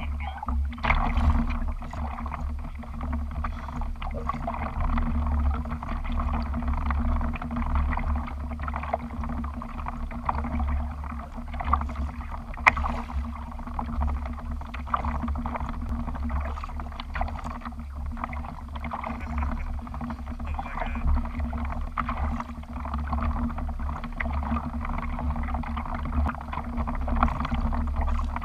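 Water sloshing and lapping against a kayak hull, over a steady low rumble, with a few light knocks.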